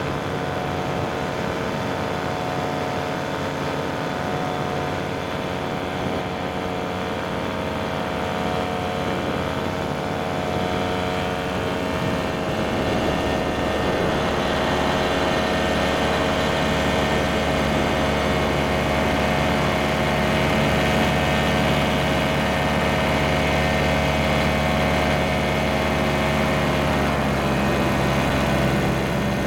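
Powered paraglider's engine and propeller running steadily at cruise, getting a little louder about halfway through, with its pitch dipping slightly near the end.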